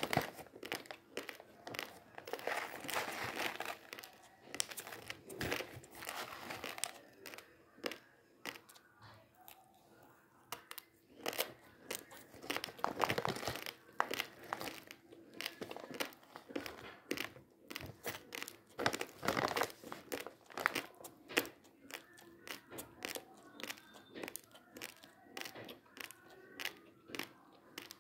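A plastic rice bag crinkling and a spoon scooping and scraping through dry, uncooked basmati rice, in irregular rustles and clicks. Mixed in is the crunch of raw rice grains being chewed.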